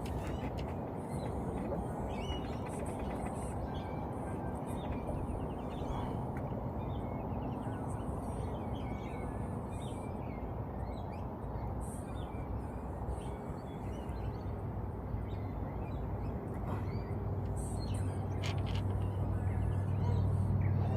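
Wild birds calling, with short chirps and quick trills, over a steady low outdoor rumble; a low hum swells over the last few seconds.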